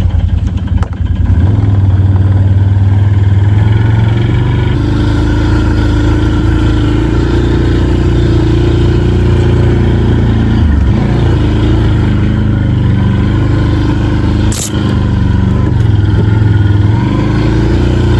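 Can-Am ATV engine running under load, its pitch rising and falling with the throttle as it pushes through deep snow, easing off briefly partway through; a sharp click a little before the end.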